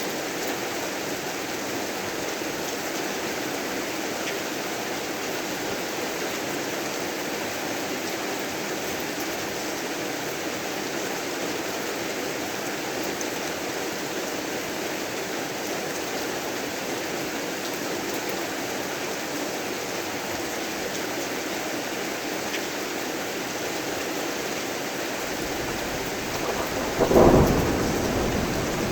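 Steady heavy rain falling. Near the end, a low rumble builds into a sharp, loud thunderclap that then fades.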